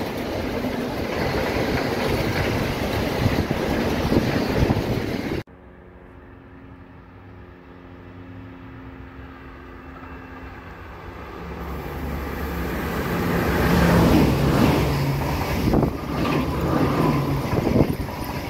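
A freight train of loaded car-transporter wagons passing at speed, a loud steady noise that cuts off suddenly about five seconds in. Then a yellow-and-blue NS passenger train approaches with a low hum, growing louder, and runs past the platform near the end.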